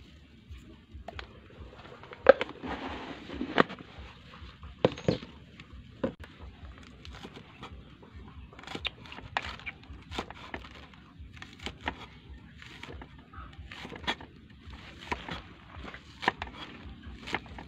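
Meat cleaver chopping on a round wooden chopping board: irregular sharp knocks, the loudest in the first five seconds.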